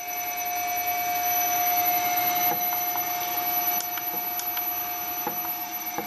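Washing machine motor driven by a variable frequency drive at a few hertz, running with a steady high-pitched electrical whine over a faint noisy hum, and a few faint clicks.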